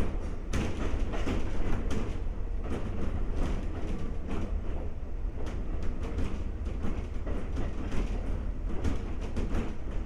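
Ex-Tokyu 7000-series electric train car DeHa 7155 running along the line, heard from inside the car: a steady low rumble of wheels on rail with frequent clicks and rattles.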